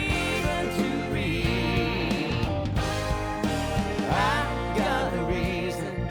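Music: a country-style tune with guitar.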